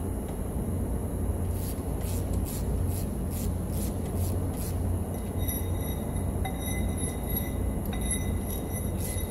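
Steady low rumble of a running vehicle engine, with scattered light clicks and knocks over it.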